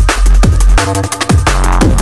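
Electronic music with a fast, driving beat and heavy bass.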